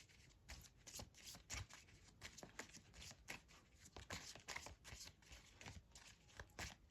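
Faint, quick flicking and rustling of a deck of fortune-telling cards being shuffled by hand.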